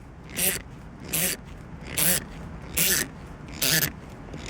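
MOMO shift knob being twisted down the shifter's threads by hand: a rasping scrape with each turn, about five strokes at roughly one a second, as it is tightened but not yet fully down.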